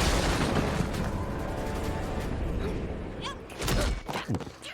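Animated-series action soundtrack: dramatic music under crashing sound effects, with a heavy impact just before the end.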